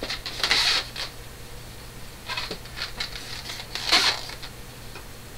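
Handling noise from a small white plastic mini sewing machine: three short rustling, clattering bursts as it is moved, set down and worked at by hand, with no motor running.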